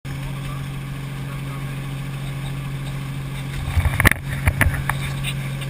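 Helicopter running in flight, heard from on board as a steady low drone, with a short cluster of knocks and clicks about four seconds in.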